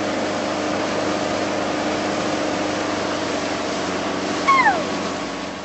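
Motorboat engine running steadily. About four and a half seconds in, one short call slides downward over it.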